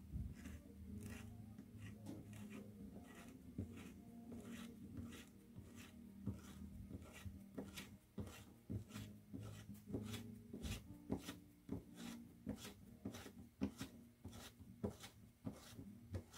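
A run of light, irregular clicks and knocks, a few a second, sharper and more frequent in the second half, over a steady low hum.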